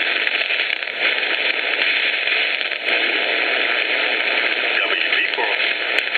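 HF ham receiver audio with its noise reduction switched off: a steady hiss of band noise and static crackle filling the receive passband, with faint wavering signals about five seconds in.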